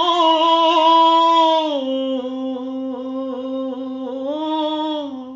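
A man singing a Kannada song unaccompanied, drawing out one long held note with slight wavering. About two seconds in it steps down to a lower note, which he holds until it fades near the end.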